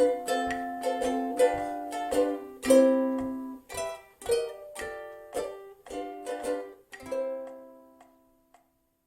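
Solo ukulele strumming chords in short, even strokes. A last chord is struck about seven seconds in and left to ring out and die away.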